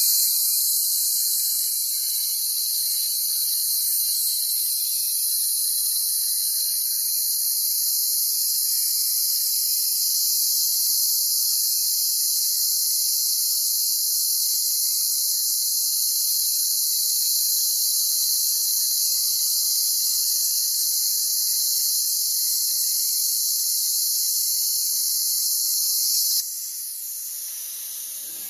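Bestarc BTC500DP plasma cutter cutting through thick steel plate: a loud, steady high-pitched hiss of the plasma arc and compressed air running without a break. Near the end the arc cuts off and the sound drops to a softer hiss of air that then fades.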